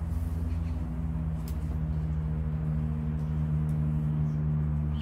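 A motor running steadily nearby, a low hum made of several steady tones that shift slightly in pitch about two seconds in.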